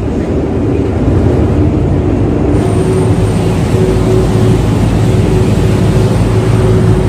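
A passenger ferry's engines running, heard on board: a loud, steady low drone with a humming tone over it.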